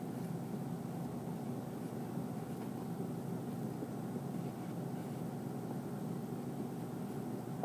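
Steady background hum of room tone, even throughout with no distinct events.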